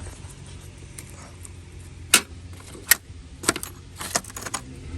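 Hand tools clinking on metal: several sharp, separate clicks in the second half, over a steady low hum.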